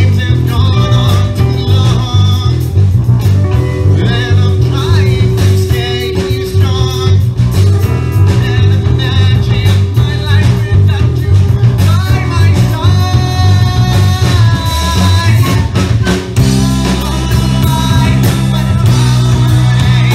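Live progressive rock band playing loud: electric guitars, bass guitar and drums with keyboards, under a man singing lead.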